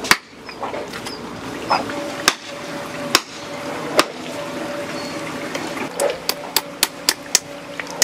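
Hammer blows on wood while nailing up batter boards. Single, spaced strikes at first, then a quick run of about four a second near the end.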